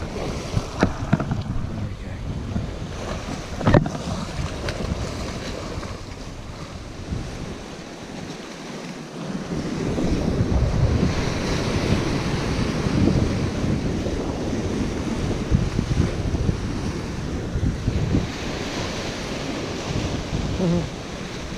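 Sea surf surging and washing over rocks, with wind buffeting the microphone. A few sharp knocks in the first four seconds, and the surf gets louder about ten seconds in.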